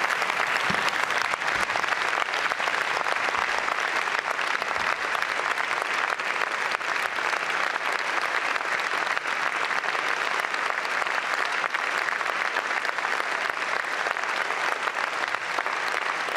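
A large assembly of parliamentarians applauding, many on their feet: dense, steady clapping that holds at one level throughout, a standing ovation.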